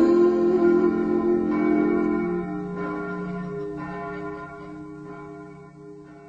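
Closing bars of a carol: the last sung note slides down, then bell-like chimes ring out over a held chord and fade away.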